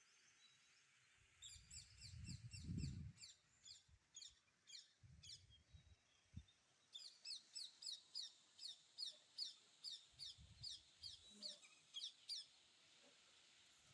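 Red-wattled lapwing calling: two runs of sharp, repeated notes, the second at about three a second, faint. A low rumble about two to three seconds in is louder than the calls.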